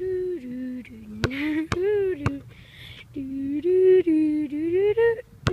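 A person humming a slow, wordless tune that slides up and down, with a few sharp thuds of a basketball bounced on a concrete court, three around one to two seconds in and one at the end.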